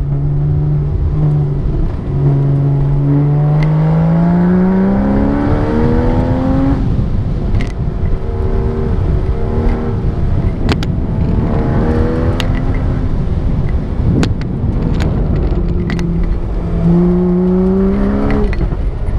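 Porsche sports car's engine heard from inside the cabin, pulling hard through an autocross run. The pitch climbs steadily for several seconds, then falls sharply and rises and falls with the throttle through the middle, climbing again near the end before another sharp drop. A few sharp clicks sound over the engine.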